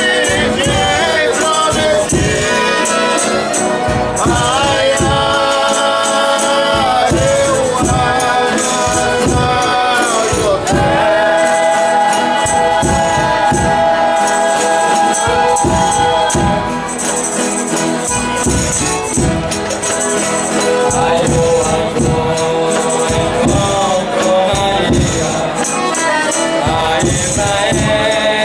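Folia de Reis music: a group of voices singing in long, drawn-out held notes over a steady beat of tambourine and drum.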